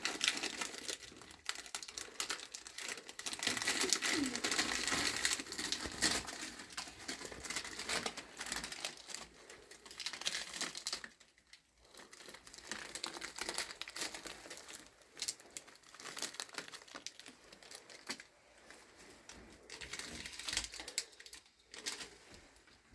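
Plastic crinkling and rustling as something is handled, made up of many small crackles. It is busiest in the first half, drops away briefly about eleven seconds in, then picks up again.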